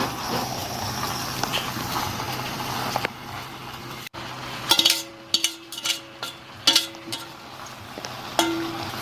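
A steady hiss with a low hum for about three seconds, then after a short break a series of sharp clinks of kitchen utensils against cookware or dishes, a few of them ringing briefly.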